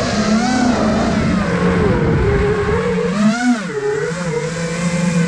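iFlight Nazgul Evoque F5 five-inch FPV quadcopter's motors and propellers whining, the pitch swooping up and down with the throttle, then settling into a steady lower hum about four seconds in.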